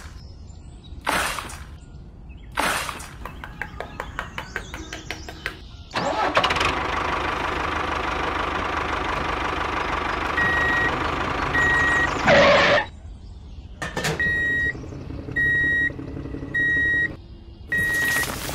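Two short whooshes, then a rapid run of clicks like an engine being cranked. About six seconds in, an engine starts and keeps running steadily. From about ten seconds in, a reversing alarm beeps in even pulses over the engine.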